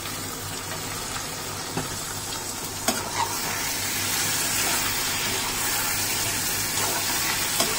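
Marinated chicken pieces sizzling in a pan as a slotted metal spatula stirs them. The sizzle grows a little louder about three seconds in, and the spatula clicks against the pan a few times.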